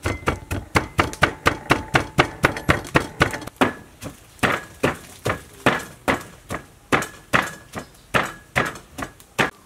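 Wooden pestle pounding in a mortar, crushing ripe chilies and garlic into a fine paste for a fish dipping sauce. The strokes come in a steady run of sharp knocks, about four a second at first, easing to two or three a second after about three and a half seconds.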